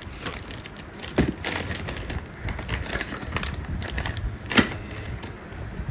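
Packaging and boxed parts being handled: crinkling and clicking, with a sharp knock about a second in and a louder one near the end.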